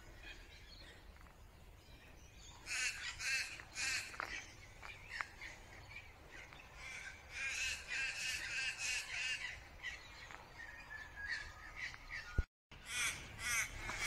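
Harsh, crow-like cawing bird calls, rapidly repeated in bouts of a second or two, around three seconds in, again from about seven to nine seconds and near the end. A sharp click and a brief dropout come about twelve and a half seconds in.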